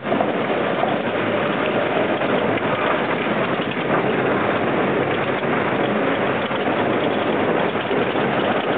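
ATV running along a rough, muddy dirt track: engine noise blended with a steady rushing noise, with no let-up.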